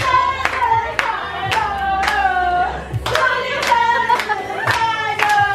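A group of people singing a birthday song together, clapping along on the beat about twice a second.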